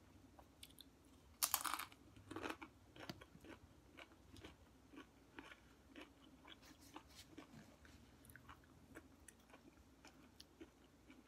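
A person bites into a crunchy tortilla chip with one loud crunch about one and a half seconds in, then chews it with many smaller, irregular crunches.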